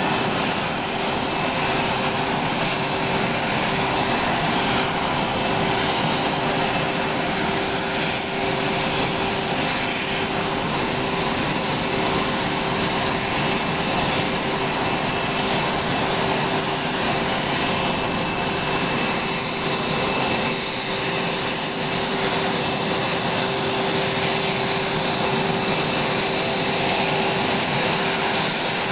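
Jet aircraft turbine engines running steadily on the ramp: a constant high whine over an even rushing noise, unchanging in level.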